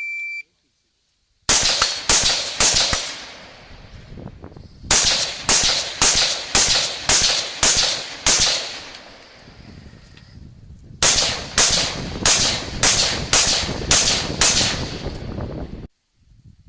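An electronic shot timer beeps once as the start signal, then rifle shots follow: three fairly quick shots, a pause, a fast string of about nine, another pause, and a second fast string of about nine, each shot with an echoing tail. The sound cuts off abruptly near the end.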